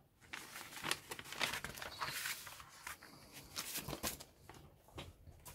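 Paper rustling and flapping as a large printed kit instruction booklet is handled: pages turned, then the booklet closed and set aside, with a string of rustles and light knocks.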